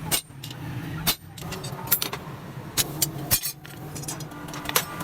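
Irregular sharp metal knocks and clinks, about eight in all, from iron being worked by hand in a blacksmith's shop, over a steady low hum.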